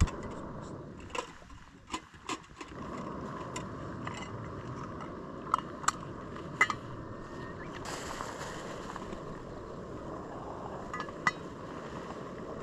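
SOTO canister gas stove burning under a pot with a steady hiss. Sharp clicks and knocks from handling the stove and pot are heard over it, several in the first couple of seconds and a few more later.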